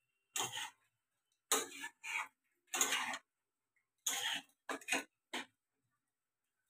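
Metal spatula scraping and stirring soaked rice, meat and potatoes in a metal kadai: about six short scrapes, roughly one a second at first and quicker near the end.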